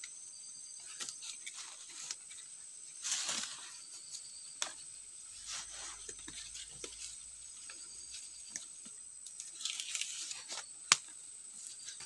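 Rustling and crinkling of a green leaf strip as it is wrapped around a sapling and pulled tight to lash a crossbar, with scattered small crackles and one sharp click just before the end.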